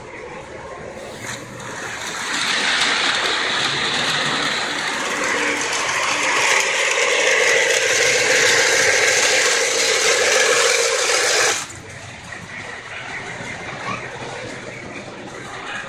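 Model train running along the track: a loud, steady mechanical rattle that builds about two seconds in and cuts off suddenly near the end, leaving a quieter background hum.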